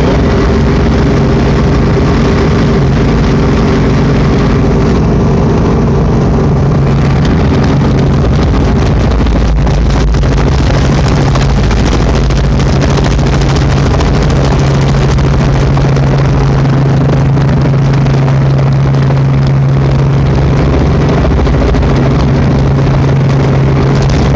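Helicopter noise from inside the cabin in flight: a loud, steady roar with a deep hum whose pattern shifts about ten seconds in.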